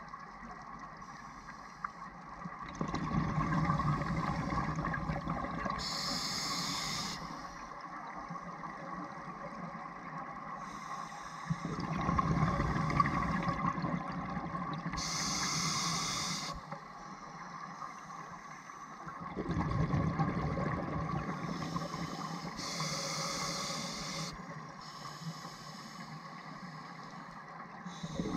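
Scuba diver breathing through a demand regulator underwater: a short hiss on each inhale and a longer bubbling rumble on each exhale. About three breaths, roughly one every eight seconds.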